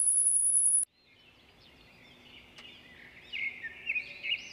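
A steady hiss with a thin high whine that cuts off abruptly about a second in. Then comes faint outdoor ambience with small birds chirping in short, quick calls, growing louder over the last second or so.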